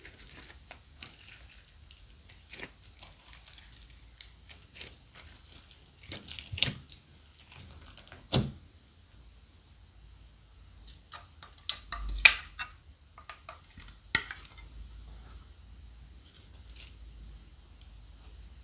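Slime being kneaded and stretched by hand, making irregular sticky clicks, squishes and crackles, with a few louder pops about eight and twelve seconds in.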